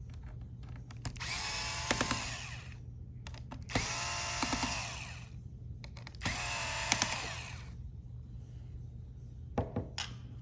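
Electric screwdriver backing out small laptop hinge screws, running in three short bursts of about a second and a half each, with a few sharp clicks.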